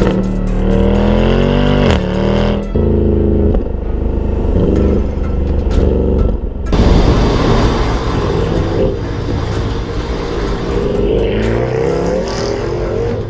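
Mercedes-AMG C63's 6.2-litre naturally aspirated V8 on a custom exhaust, accelerating hard: the revs climb and drop sharply twice in the first few seconds. A louder, rougher stretch starts suddenly about seven seconds in, and the revs climb again near the end.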